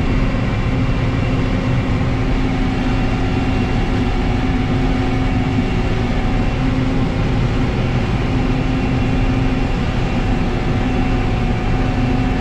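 Case IH 1640 Axial-Flow combine running steadily while harvesting soybeans, heard from inside the cab: an even drone of engine and threshing machinery with a few steady hums on top.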